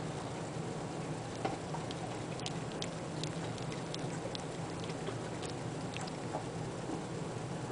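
Sleeping Boxer puppy hiccuping: small, sharp clicks at uneven intervals, the strongest about a second and a half in, over a steady low hum.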